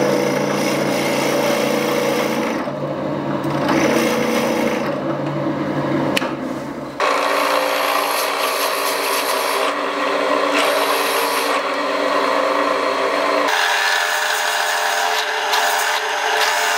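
A power tool's thin vertical saw bit cutting through a plywood disc: the motor runs steadily under a rasping, grinding cut through the wood. The sound breaks and changes abruptly about seven seconds in and again later, as the cutting resumes.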